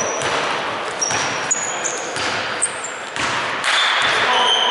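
Basketball game play: shoes squeaking briefly and repeatedly on the court and the ball bouncing a couple of times, over steady crowd noise.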